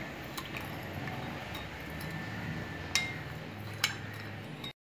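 Metal spoon stirring sugar into milk in a glass bowl, with several light clinks of the spoon against the glass. The sound cuts off abruptly near the end.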